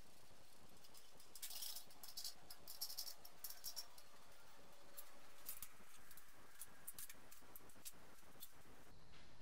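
Light, irregular clicks and clinks of small bolts and metal parts being handled and set in place while a reinforcement plate is fitted to a BMW M20B25 engine.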